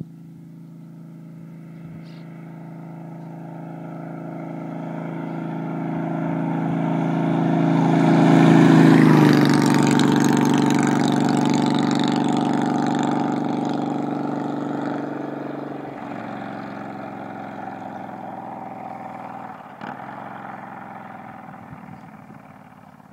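Honda VTX1300R V-twin motorcycle with a Vance & Hines exhaust making a pass-by: its deep rumble grows louder as it approaches, drops in pitch as it passes about nine seconds in, then fades slowly as it rides away.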